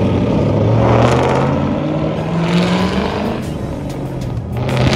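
Car engine revving, its pitch climbing and dropping in several swells.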